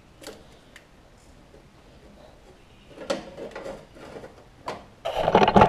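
Hands working a steel control cable and wiring inside a riding mower's metal frame: a few light clicks and rattles from about three seconds in, then a louder scraping rustle near the end.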